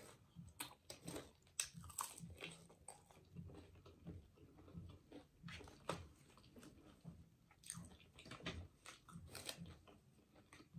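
Faint, close-miked chewing of a ranch-dipped chicken wing: irregular mouth clicks and small crunches, with no talking.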